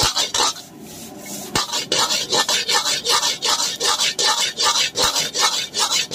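Metal spatula scraping and scooping fried rice around a metal wok in quick rhythmic strokes, about three a second. There is a short lull about half a second in, then the strokes pick up again.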